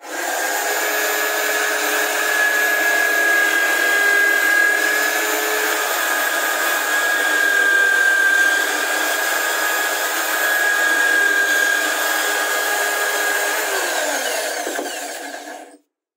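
Corded electric drill mounted in a homemade plywood drill press, running at speed with a steady high whine while drilling holes in plywood. Near the end its pitch falls and it stops.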